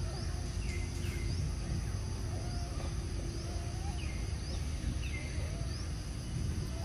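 Outdoor ambience: a bird repeats short falling chirps about once a second over a steady insect drone and a low rumble.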